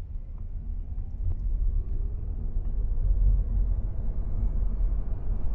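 Low road and tyre rumble heard inside the cabin of a Geely Geometry electric car, growing louder as the car picks up speed.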